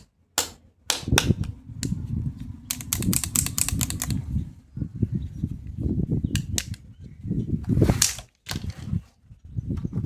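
Hard plastic toy doctor-kit pieces being handled and set down: a string of sharp clicks and knocks, with a quick run of clicks around three seconds in and a short rustle near the end.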